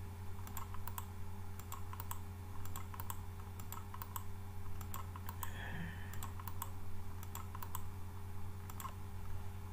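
Irregular clicking of computer keys, dozens of short clicks with uneven gaps, over a steady low electrical hum.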